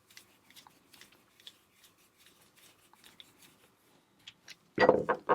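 Faint, scattered small clicks and scrapes of a padlock's key and core being worked as the reassembled lock is tested to see whether it turns. Near the end a much louder voice-like sound begins.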